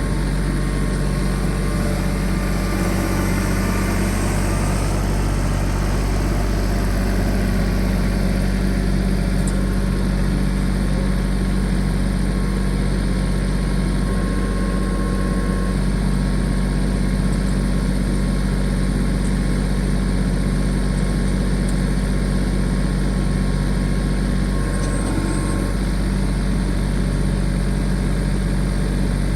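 Tractor engine running steadily at an even speed while it loads a pine log.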